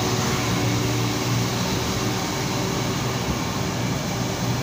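Bus engine running steadily with tyre and road noise, heard from inside the moving bus, with a steady low hum throughout.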